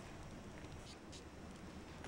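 Quiet room tone with a couple of faint, brief ticks.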